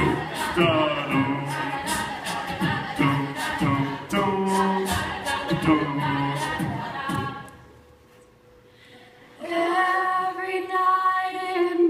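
A cappella group of mixed voices singing, with a low bass line and a steady beat of sharp clicks. The sound drops away to near silence about eight seconds in, then the group comes back on a long held chord.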